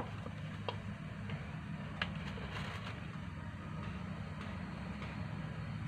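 A metal spoon clicking a few times against a plastic bowl while bait is stirred, over a low steady hum.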